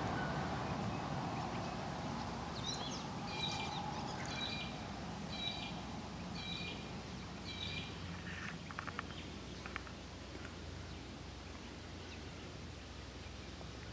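A bird calling five times in a row, about once a second, each a short chirping phrase, over a low steady background rumble that slowly fades. A few faint clicks follow.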